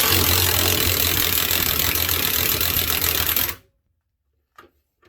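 Ryobi 18V One+ HP brushless 1/2" high-torque impact wrench hammering in reverse for about three and a half seconds, then stopping suddenly, trying to back off a stripped 5/8" nut that stays stuck.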